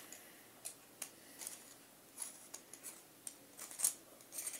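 Scattered small metallic clicks and taps, about one every half second to a second, of an Allen key being worked into the CO2 magazine of a BB pistol.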